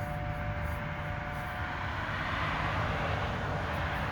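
Outdoor tornado warning siren sounding in the distance, a steady two-note tone that fades away about a second in, over a rushing noise that swells in the middle and low wind rumble on the microphone.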